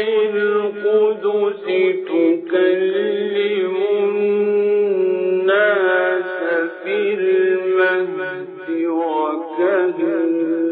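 A man's voice reciting the Quran in a melodic, chanted style: long held notes ornamented with pitch that slides up and down, broken by brief pauses.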